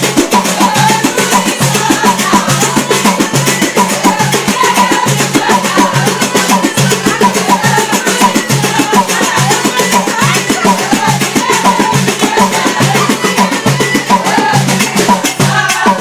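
Loud music driven by fast, dense drum strokes, with a wavering melody line over the rhythm.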